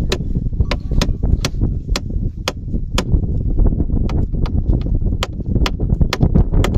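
Steady low rumble with wind buffeting the microphone aboard a boat, cut by sharp ticks about twice a second.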